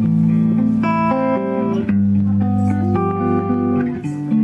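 Electric guitar, a Stratocaster-style solid-body, playing an instrumental passage of a worship song between sung lines, with notes and chords changing about every second.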